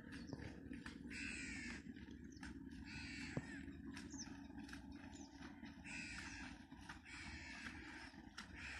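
A crow cawing repeatedly: about four or five harsh calls, each about half a second long, spaced one to three seconds apart.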